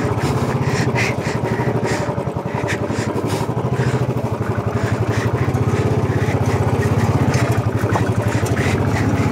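Royal Enfield 350 single-cylinder motorcycle engine running steadily at low revs, its separate firing pulses clearly heard.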